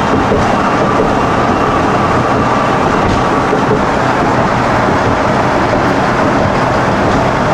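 Steady road and engine noise inside a moving vehicle, a continuous rumble and rush with no breaks.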